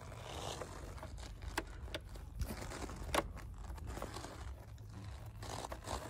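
Light handling noises from a plastic air filter housing and nearby engine-bay parts being touched by gloved hands: scraping and crinkling with a few sharp plastic clicks, over a low steady rumble.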